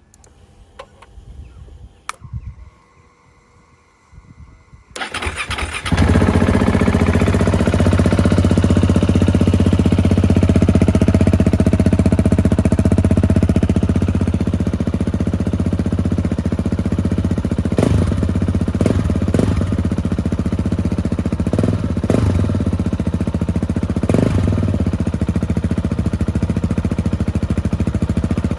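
KTM 690 Enduro single-cylinder engine with an Arrow exhaust starting about five seconds in, then running steadily at idle. There are a few brief blips in the second half.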